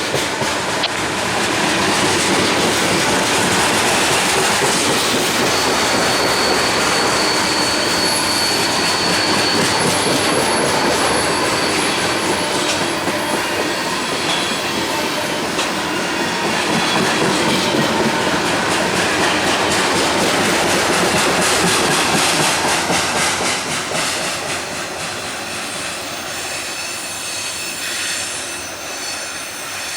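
Freight cars of a long CSX mixed manifest freight train rolling past, a steady wheel-on-rail clatter. A thin high wheel squeal rises out of it about five seconds in and lasts several seconds. The noise eases off somewhat in the last quarter.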